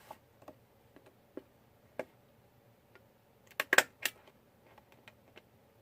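A few faint clicks and taps from handling paper, then a cluster of sharp clicks a little past halfway as a hand stapler is pressed shut through a scrapbook page.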